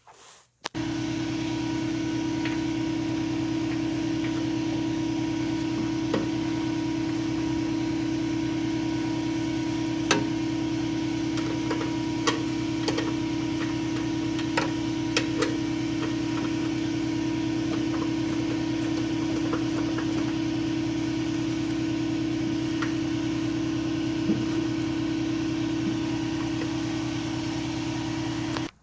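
A steady machine hum with a few faint clicks and knocks, starting suddenly just under a second in and cutting off suddenly near the end.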